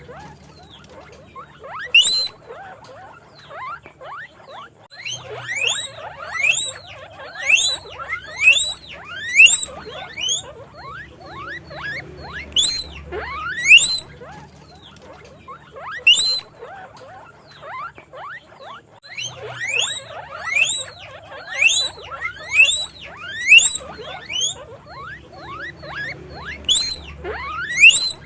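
Guinea pigs squeaking: short, shrill, sharply rising whistled squeaks, wheeks, coming in irregular runs of several in quick succession, with quieter squeaks in between.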